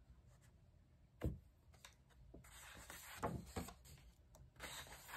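Faint rustling of paper pages as a large paperback colouring book is leafed through, with a soft knock about a second in.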